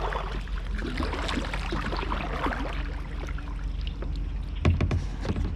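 Kayak being paddled: the paddle swishes and drips through the water over a steady low rumble, with a louder thump about three-quarters of the way through.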